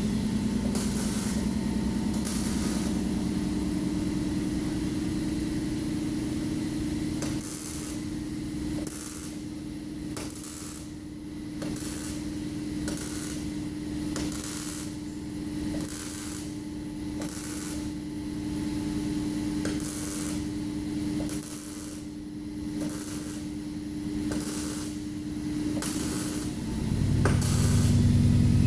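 MIG welder arc hissing and crackling in short bursts about once a second, over a steady hum.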